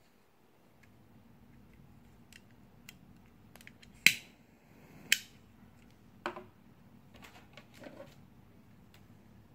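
Sharp metallic clicks from handling a knife-shaped metal gas lighter: two loud snaps about a second apart near the middle, then softer clicks and light knocks.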